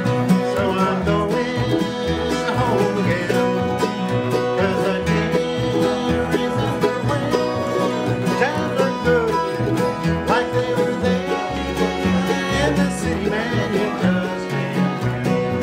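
Instrumental bluegrass-style music: rapid picked banjo over guitar, no singing.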